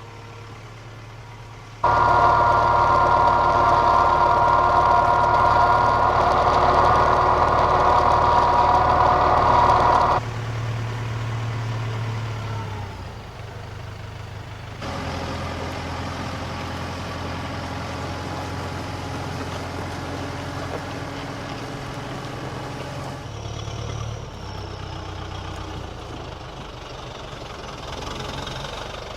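Engines running: a loud, steady, high-pitched engine sound for about eight seconds, then a quieter, lower engine running steadily. The sound changes abruptly several times.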